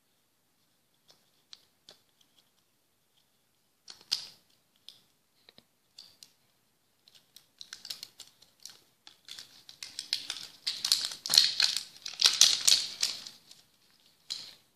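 Hands handling and prying open a clear plastic surprise-egg capsule: scattered small plastic clicks and taps at first, then a dense run of clicking, crinkling and rattling from the capsule and the candies and toy inside, loudest a little after the middle, as the halves come apart.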